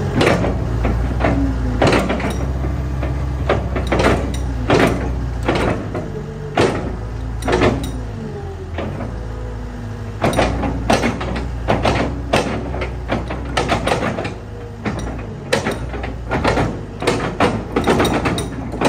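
Komatsu PW150 wheeled excavator's diesel engine running steadily while its hydraulics work the boom and bucket, with frequent clanks and knocks from the moving arm and bucket, thickest in the second half.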